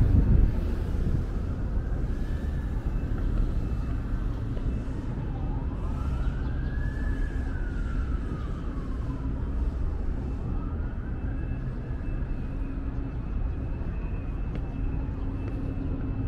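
An emergency vehicle siren wailing slowly, its pitch rising and falling about three times, fainter than a steady low rumble that is loudest at the very start.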